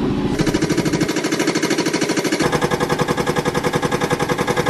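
A machine engine running with a fast, even pulsing chug; its note changes about a third of a second in and again past the middle.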